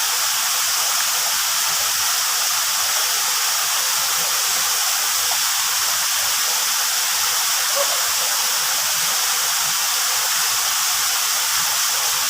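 Waterfall pouring steadily into a pool, an even rushing hiss of falling water.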